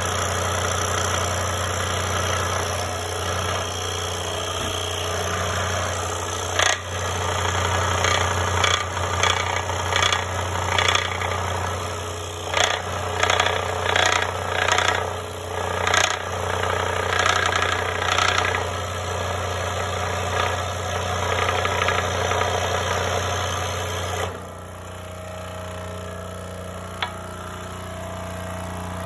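DeWalt 16-inch scroll saw running with a steady motor hum while its reciprocating blade cuts a thick wooden spoon blank, the cut rasping with a run of sharp knocks through the middle. About five seconds before the end the blade comes clear of the wood and the saw runs on freely, quieter and steadier.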